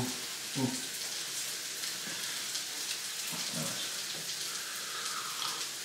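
Oil sizzling and crackling steadily in a frying pan on a gas stove.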